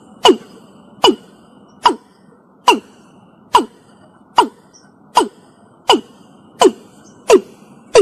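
Watercock calling: an even series of short, sharp notes, each dropping quickly in pitch, a little under one a second, over a faint steady hiss.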